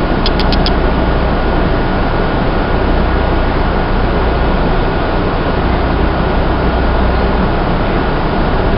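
MBTA Red Line subway train running through a tunnel, heard from inside the car: a steady loud rumble and rush of wheels on rail with a thin, steady whine above it. A few quick clicks come about a third of a second in.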